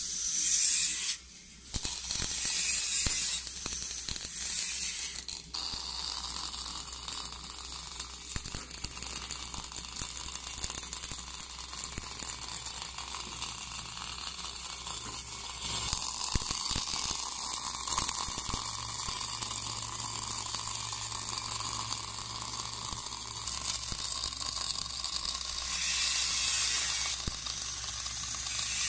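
Arc of an automatic orbital pipe-welding machine crackling steadily over a low hum, breaking off briefly about a second in.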